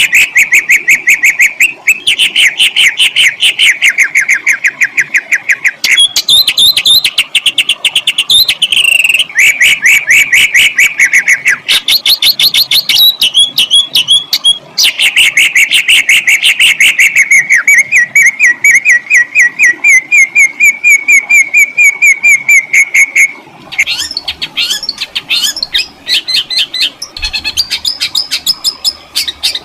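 Songbird song of the kind used as masteran for training competition birds: loud, fast rolling trills of repeated harsh, sharp notes. The notes come in runs of a few seconds that change pitch and pace, with a long, even run in the middle and a higher, more broken series near the end.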